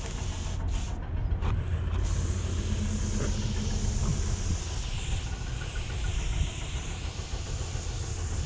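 Aerosol spray paint hissing through a four-needle skinny cap adapter: a couple of short spurts in the first two seconds, then one long steady spray from about two seconds in. A low rumble of wind on the microphone runs underneath.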